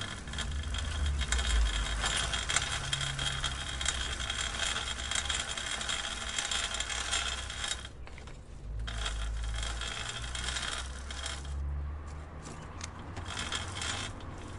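Bicycle chain and drivetrain clicking in a rapid, dense patter, breaking off briefly about eight seconds in and again around twelve seconds, over a low rumble.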